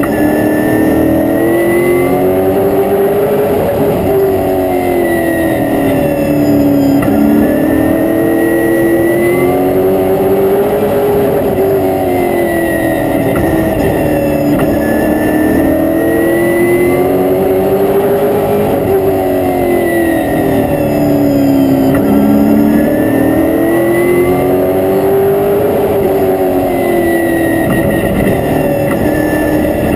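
Stock car's V8 engine heard from inside the cockpit, under way on the oval: the engine note climbs and drops again about every four seconds as the car accelerates and lifts, over a steady rush of engine and road noise.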